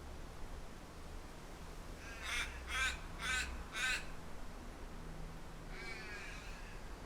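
Crow cawing four times in quick succession, harsh calls, with a fainter call about six seconds in, over a steady low rumble.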